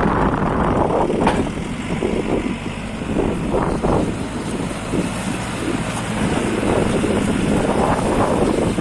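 Diesel engine of a JCB 3CX backhoe loader running, its level dipping for a few seconds and rising again near the end.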